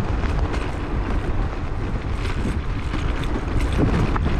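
Zero 10X electric scooter riding over a broken-up road: a steady rumble of tyres and wind on the microphone, with a few light knocks from the suspension. The knocks come from a spring with no damper and play in the pivot pin.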